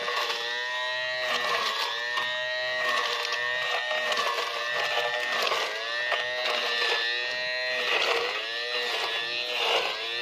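Small 12 V DC motor of a homemade weeding tool buzzing steadily, its pitch dropping briefly and recovering every second or two as the blade is pushed into the grass and soil.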